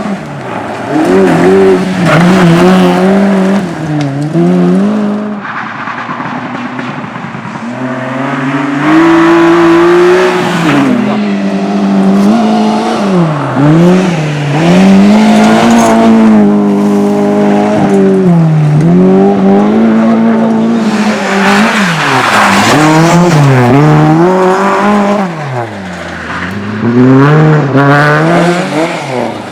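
Hill-slalom race car engine revving hard and backing off again and again, its pitch rising and falling every couple of seconds as the car works through the slalom gates.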